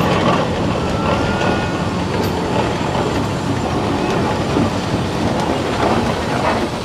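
Antique steam traction engine running as it drives along, a steady mechanical working sound.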